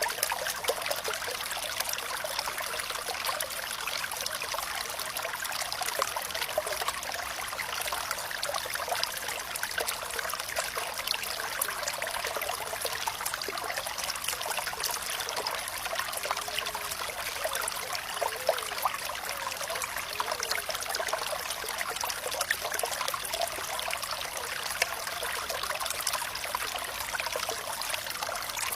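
Water trickling and flowing steadily over a shallow bed, a light splashing trickle with little deep rumble. A few small bubbling gurgles come about two-thirds of the way through.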